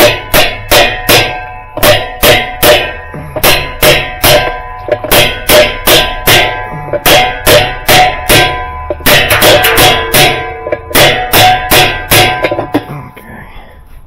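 Rapid hammer blows on the metal agitator drive hub and shaft of a top-load washer, about three a second with short pauses, each one ringing. The blows stop about a second before the end.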